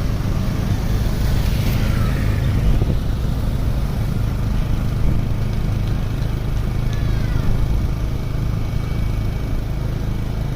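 Vehicle engine running steadily with a low, even rumble and no revving.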